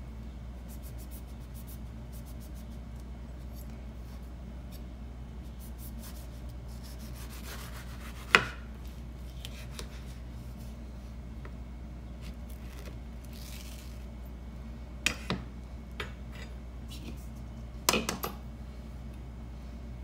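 Chef's knife cutting through mango flesh on a wooden cutting board: soft scraping and rubbing, broken by sharp knocks on the board. The loudest knock comes about eight seconds in, with smaller clusters near the end, over a low steady hum.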